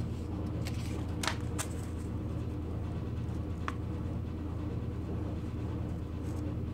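Steady low hum with a few short faint clicks in the first few seconds.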